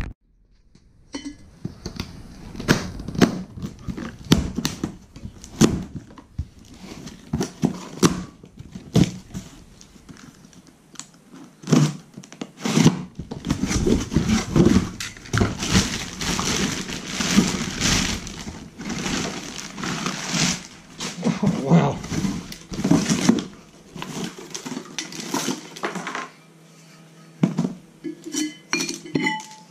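A cardboard brake-rotor box being opened and unpacked: the plastic strapping cut off and the cardboard and wrapping rustling, with a long stretch of rustling through the middle. Scattered knocks and clinks of hand tools and iron brake rotors being handled.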